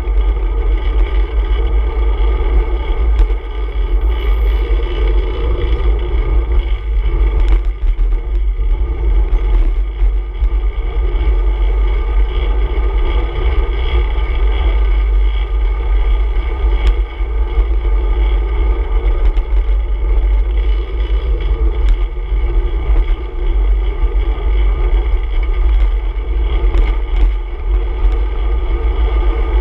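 Steady wind and road rumble on a handlebar-mounted action camera's microphone while a road bike rides in traffic: a loud, even low rumble with a few small clicks.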